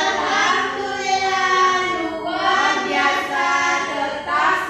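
Children singing a song together in long held notes.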